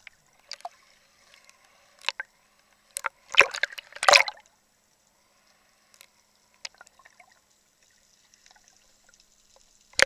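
Sea water splashing and sloshing around a camera held at the surface as it dips in and out of the waves: short splashes about half a second and two seconds in, a longer burst from about three to four seconds, a small one near seven seconds, and only faint underwater noise in between.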